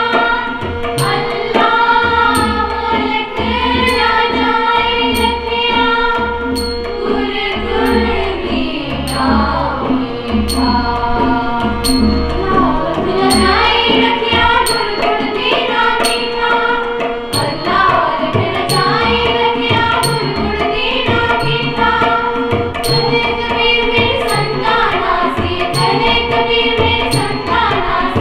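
A group of young voices singing a Sikh shabad (devotional hymn) to tabla accompaniment, with a steady rhythm of drum strokes under the melody.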